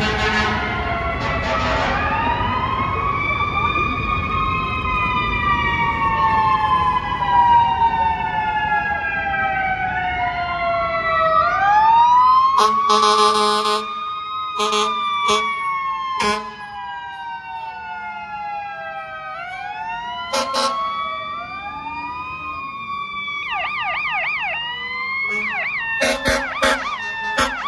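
Several fire trucks go by with their sirens. Overlapping wails rise quickly and then fall slowly, again and again, in the manner of mechanical sirens winding up and coasting down. Air horn blasts come about halfway through and again near the end, a fast electronic yelp sounds shortly before the end, and a heavy engine rumble runs under the first half.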